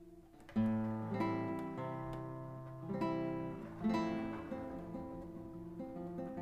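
Background music on acoustic guitar, strummed and picked: after a brief lull a loud chord comes in about half a second in, with more accented chords following every second or so.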